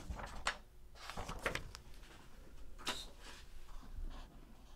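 Faint rustling of a thin sheet of tissue paper as it is lifted and handled, with a few light clicks and taps scattered through it.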